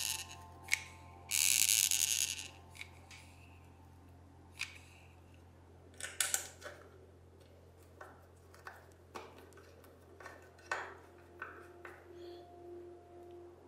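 Small clicks and taps of hands handling and fitting small metal parts of a vintage radio, over a steady low hum. A loud hiss lasting about a second comes near the start.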